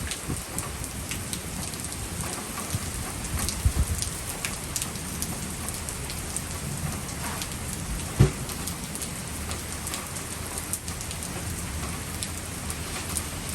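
Rain falling steadily during a storm, with scattered sharp ticks of drops striking a surface. A few louder low knocks come about four seconds in, and a single loud thump about eight seconds in is the loudest sound.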